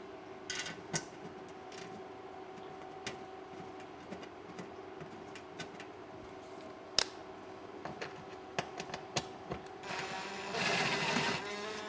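Scattered light clicks and taps as a sheet-steel mini-split wall-mounting bracket is handled and positioned against the wall. About ten seconds in, a cordless drill runs for about a second, driving a screw to fasten the bracket.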